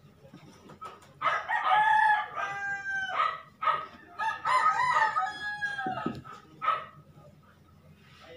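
A rooster crowing twice, each crow a long call of nearly two seconds that bends down in pitch at the end.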